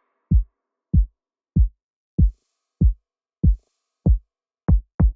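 Background music of deep electronic kick-drum hits alone, each dropping in pitch, about one every 0.6 s, then speeding up to about three a second near the end as a build-up.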